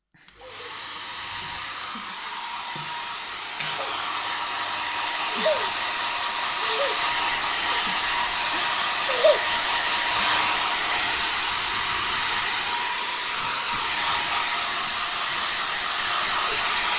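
Hair dryer on its cool setting, switched on about half a second in and blowing steadily, stepping up louder a few seconds in. A few brief high-pitched sounds stand out over it, the loudest about nine seconds in.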